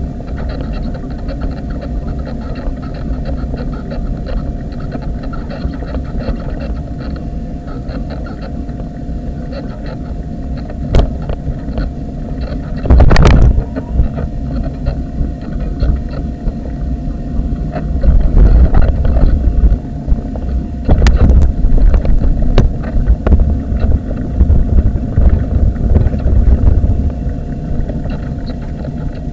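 Wheelchair rolling along a tarmac path: a steady low rumble with a faint constant whine, broken by knocks and jolts from the surface, the loudest about 13 seconds in, and heavier rumbling and thumping from about 18 seconds on.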